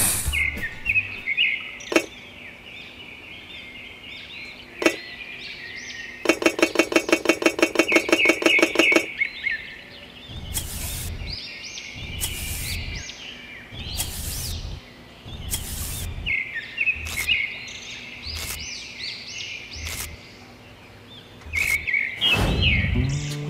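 Birds chirping, with a rapid run of evenly spaced clicks for about three seconds near the middle, then a series of short, dull knocks and scrapes as small objects are handled in sand.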